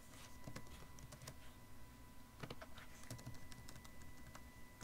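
Typing on a computer keyboard: faint, irregular key clicks as a word is typed and text deleted.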